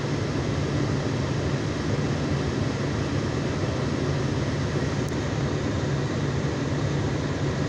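Car cabin noise: a steady low hum with an even rush of air from the running car and its ventilation fan.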